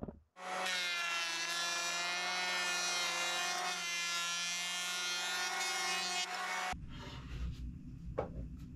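Cordless electric hand planer running and shaving a wooden board: a steady motor whine with the hiss of the cutter, holding for about six seconds. It stops abruptly, followed by a low rumble and a few light clicks.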